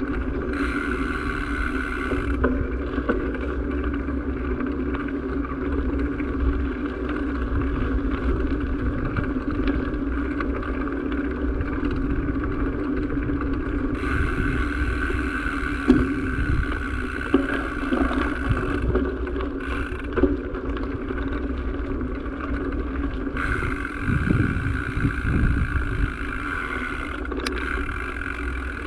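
A steady engine drone with low wind rumble on the microphone. A higher hiss comes in and drops out three times.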